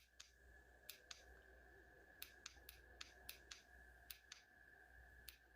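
Faint clicks from a keychain flashlight's push button, pressed over and over at uneven intervals, a dozen or more in all, to step through its light modes. A faint steady high hum runs underneath.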